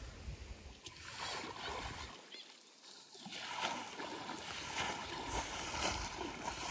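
Faint splashing and sloshing of wet mud and shallow water, growing busier about halfway through as a shovel works the mud.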